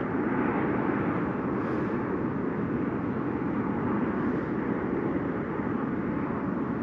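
Steady rushing wind noise on the microphone.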